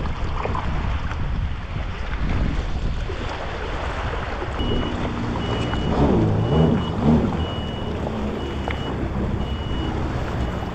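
Yamaha 1800 four-stroke jet ski engine running in short throttle bursts while it is driven up onto a trailer; its revs rise and fall about six to seven seconds in. From about four and a half seconds in, an electronic beeper sounds steadily, a bit faster than once a second.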